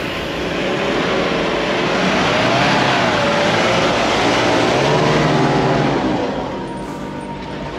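Four-wheel-drive ute's engine working under load as it tows an off-road caravan through soft sand, revs rising and falling, with the tyres churning sand. It grows louder as it drives past and fades after about six seconds.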